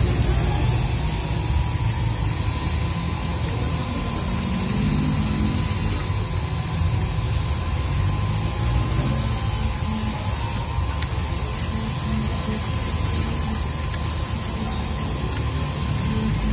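Engraving machine spindle running with its cutter cutting letters into a plastic sign plate: a steady mechanical whir with a faint high whine.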